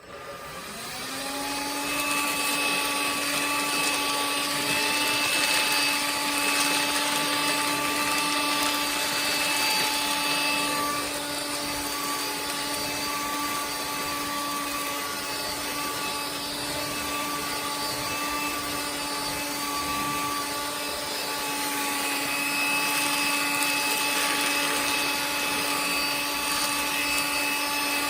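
Electrolux Ergorapido cordless stick vacuum switched on, its motor spinning up over about two seconds and then running steadily with a whine. Its high tone fades from about 11 seconds in and comes back about 21 seconds in.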